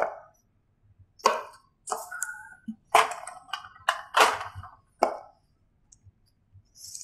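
Small round magnets clicking onto a whiteboard as a paper strip is fixed in place: about six sharp clicks and knocks, roughly a second apart.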